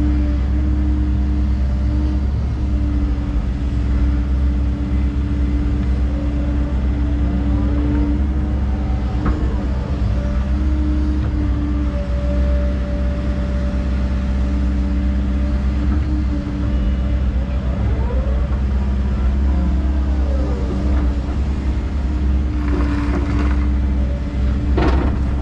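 Excavator's diesel engine running steadily while the machine works, with a whine that rises and falls a few times as the hydraulics move the boom and bucket. A sharp knock sounds near the end.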